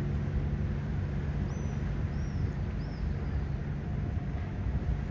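A steady low engine rumble. Three short, high chirps, most likely a bird, come about one and a half to three seconds in.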